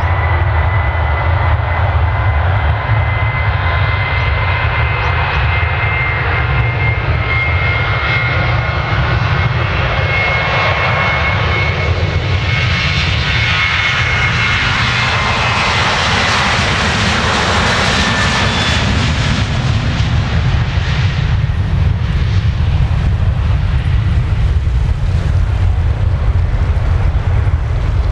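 Boeing 737-800's CFM56-7B turbofan engines at takeoff thrust: a steady high fan whine over a deep rumble. The sound grows fuller and louder in the middle as the jet goes by, then the whine fades and the rumble carries on.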